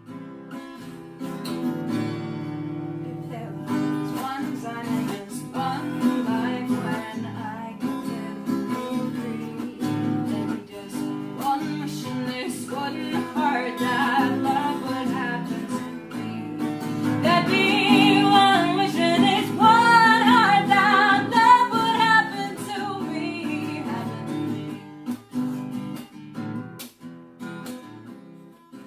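Intro music: strummed acoustic guitar with a singing voice, the singing strongest past the middle.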